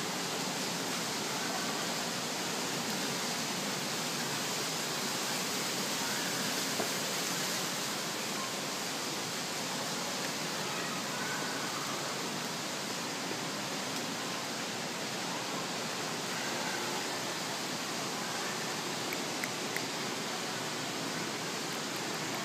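Steady, even rushing of falling water, like a waterfall.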